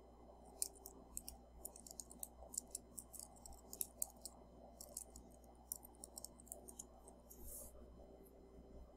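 Faint typing on a computer keyboard: an irregular run of quick key clicks that stops about seven and a half seconds in.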